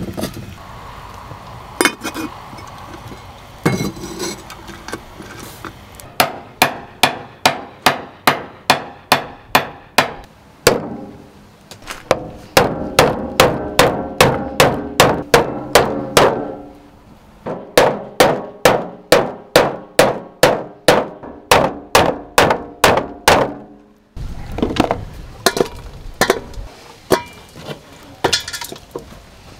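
Repeated sharp strikes, each with a brief ring, in steady runs of about two to three a second. The runs pause briefly twice and give way to softer, scattered knocks near the end.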